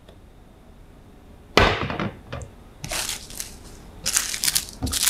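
A single knock about a second and a half in as a metal tumbler is set down on a glass tabletop. From about three seconds in comes irregular crinkling and rustling of a small plastic bag holding keychains.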